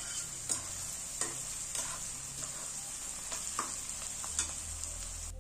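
Sliced onions sizzling in hot oil in a metal karahi, stirred with a metal spatula that scrapes and clicks against the pan about once a second; the onions are being fried until just soft. The sizzle cuts off suddenly near the end.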